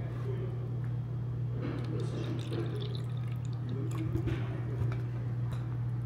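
Soft eating sounds from a bowl of gomtang: faint liquid sounds and a few light spoon clicks. A steady low hum runs underneath.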